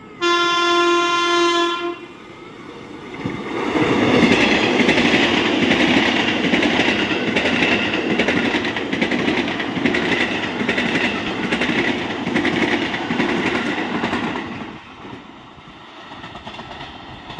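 KRL Commuter Line electric train sounding one horn blast of under two seconds as it approaches, then passing close by at speed with loud wheel-on-rail rumble and clickety-clack over the rail joints for about ten seconds, dying away near the end.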